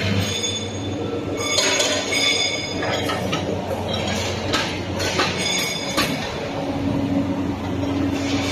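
Chain flash welding machine running: a steady low hum under repeated high-pitched metallic squeals lasting about a second each, with sharp clicks and clanks of metal in between.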